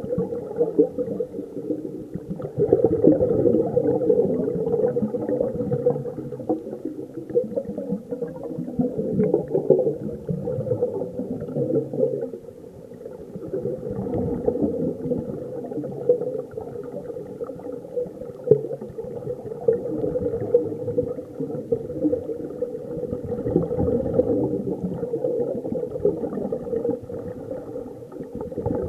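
Muffled underwater sound of scuba divers breathing through their regulators: a steady rumbling and gurgling of exhaled bubbles.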